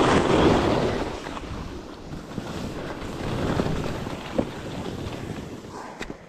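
Wind rushing over the microphone of a skier on the move, with the hiss of skis sliding and scraping through soft, chopped-up snow. It is loudest in the first second or so, then eases.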